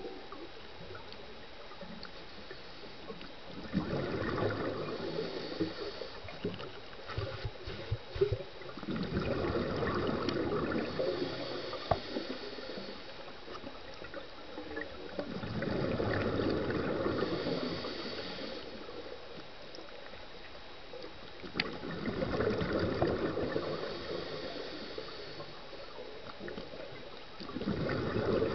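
Underwater sound of a scuba diver breathing through a regulator: bubbling exhalations in bursts of two to three seconds, about every six seconds, over a steady low hiss.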